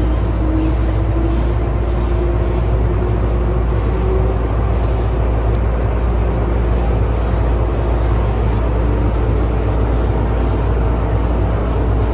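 MTR M-train electric multiple unit running, heard from inside the carriage: a steady low rumble of wheels and running gear, with a humming tone that climbs slowly in pitch over the first four seconds as the train gathers speed.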